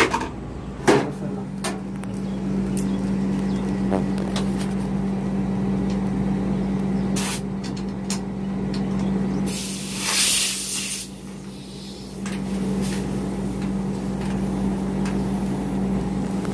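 Metal clicks at a split AC outdoor unit's service valve, then a steady hum from the running unit. From about nine and a half to eleven seconds in comes a short, loud hiss of refrigerant gas escaping at the service port as a pressure-gauge hose is connected.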